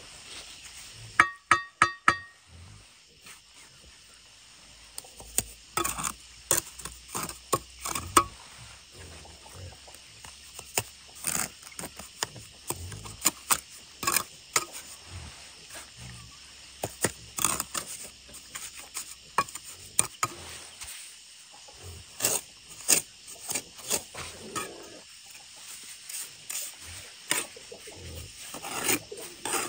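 Steel mason's trowel working mortar on concrete blocks. About a second in there are four quick ringing taps, then irregular scrapes and knocks as mortar is spread and smoothed along the blocks.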